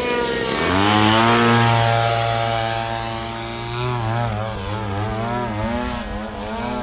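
Radio-controlled model airplane's engine throttling up for takeoff, its pitch rising quickly about half a second in, then running steadily. From about four seconds in the pitch swings up and down repeatedly as the plane manoeuvres overhead.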